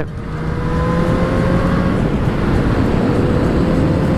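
Yamaha XJ6 motorcycle's inline-four engine pulling steadily under way, its note rising slowly, over heavy wind and road noise.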